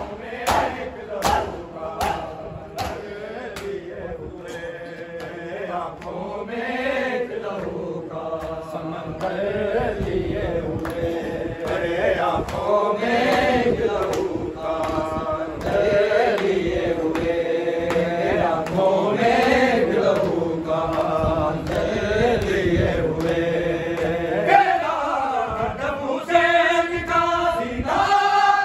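A group of men chanting a noha, a slow Shia lamentation chant, together in unison, with the melody swelling and falling in long phrases. For the first few seconds it is accompanied by rhythmic chest-beating (matam), open-hand slaps about every 0.7 s, which then die away.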